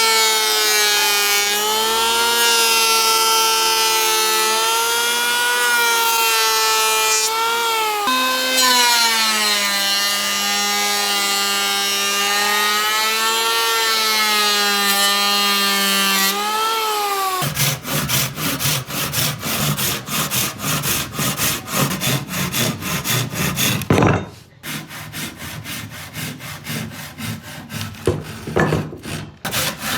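A power tool's motor runs with a steady hum whose pitch wavers and dips, then cuts off a little past the halfway point. Wood is then sawn in quick, even, rhythmic strokes, with a brief pause near the end.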